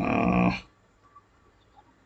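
A man's short wordless vocal sound, a hum or drawn-out 'hmm', lasting about half a second at the start, then quiet room tone.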